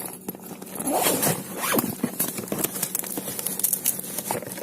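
Scraping, rustling and light clicking as an emergency warning triangle in its plastic case is pulled out from among items in a car's boot.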